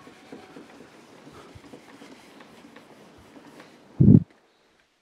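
Whiteboard eraser rubbing across a whiteboard, a faint scuffing wipe, with one loud dull thump about four seconds in.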